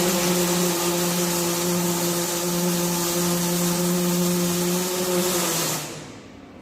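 A handheld electric power tool running steadily with a motor whine and hiss, then switched off and winding down about six seconds in.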